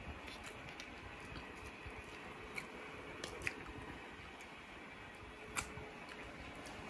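Faint chewing and wet mouth clicks of a person eating a mouthful of chicken biryani with his fingers. A few short smacks stand out, the loudest about five and a half seconds in.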